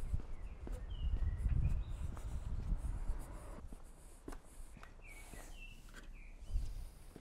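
Footsteps on cobblestones and light knocks from an aluminium extension ladder being carried, with a few short bird chirps about a second in and again near the end.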